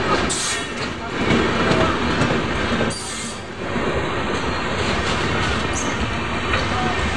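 Indian Railways LHB passenger coaches rolling past close by: steady wheel-on-rail noise with a light clatter and a few brief squeals and hisses.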